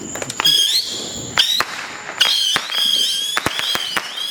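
Consumer fireworks going off: a rapid string of sharp bangs and cracks mixed with several whistles that rise quickly in pitch and then hold.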